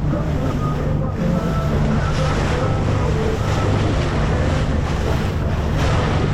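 Boat engine running steadily under the rush of water, with wind buffeting the microphone.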